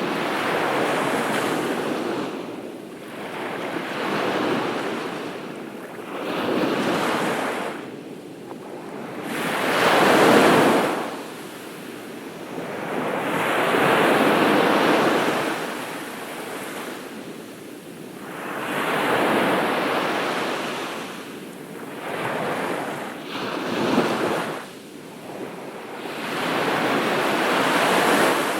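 Ocean waves breaking and washing up a beach: the surf swells and fades in repeated surges every few seconds, the loudest about a third of the way in.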